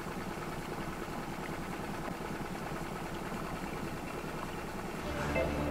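Steady low hum of an idling boat engine, with music fading in near the end.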